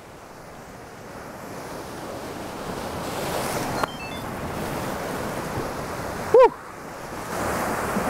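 Surf breaking and washing over a rocky shore with wind, building gradually louder. A sharp click comes about four seconds in, and a short vocal sound a little after six seconds.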